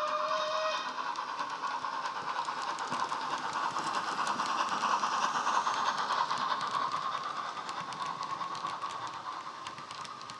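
Bulleid Battle of Britain Light Pacific steam sound played by a Loksound 5 decoder through a small speaker in a Hornby OO model: a short whistle note at the start, then steady running sound with rail clicks from the model passing with its coaches. It is loudest about halfway through and fades toward the end.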